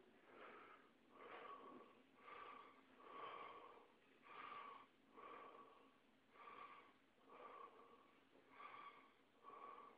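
Faint, wheezy breathing close to the microphone, with a soft breath sound about once a second and a thin whistle in each one.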